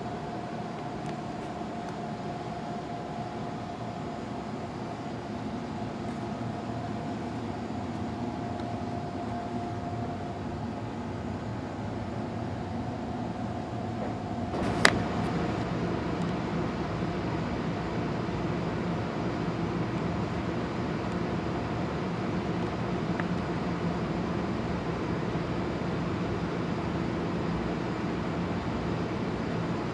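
Steady mechanical hum with a faint held whine, broken by a single sharp click about halfway through, after which the hum is slightly louder.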